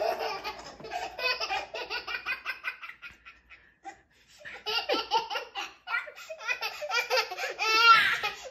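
A toddler laughing in two long runs of quick giggles, with a short pause about three seconds in, and loudest near the end.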